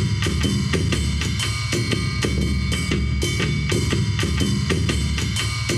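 Layered taiko-style drumming made from a tiny close-miked drum, the mic closeness giving it a deep bass so that it sounds like large Japanese taiko drums. Fast, dense strokes run over a continuous low boom, with reverb.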